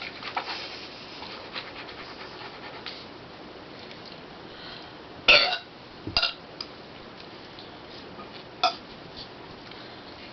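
A person burping after gulping carbonated soda: one loud, short burp about five seconds in, followed by two shorter sounds about a second and three seconds later, over a faint steady hiss.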